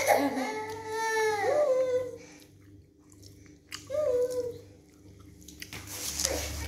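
A young child whining in drawn-out, high-pitched wails: a long one at the start and a shorter one about four seconds in.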